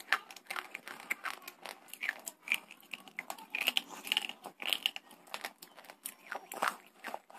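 Crunching and chewing of hard slate bars close to the microphone: dense, irregular, sharp crackles as the pieces are bitten and ground between the teeth.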